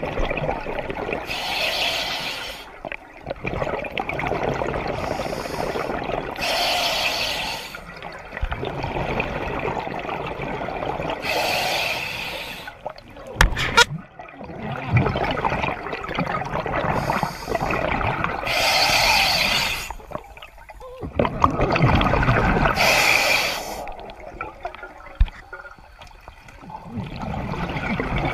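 A scuba diver's own breathing through a regulator underwater: a hissing inhale every five or six seconds, each followed by a longer bubbling exhale. A couple of sharp knocks about halfway through.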